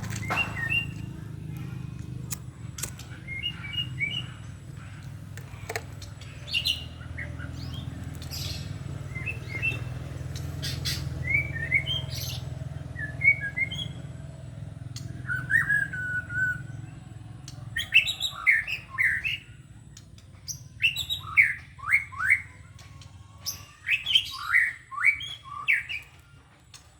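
A caged white-rumped shama (murai batu) in tail moult sings short, varied phrases of chirps, whistles and harsher clipped notes, with sharp clicks between them. From about two-thirds of the way through the song becomes louder and busier. A steady low hum runs underneath until then.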